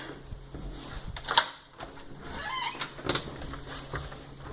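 Clicks and knocks of a door latch and door as a house door is unlocked and opened, with the sharpest knock about a second and a half in.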